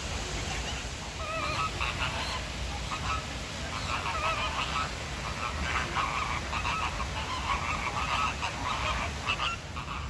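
A flock of flamingos honking: many short calls overlapping one another, starting about a second in and going on until just before the end, over a steady low rumble.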